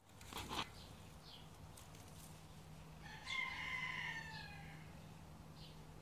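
A rooster crows once, faintly, about three seconds in, over a faint low steady hum.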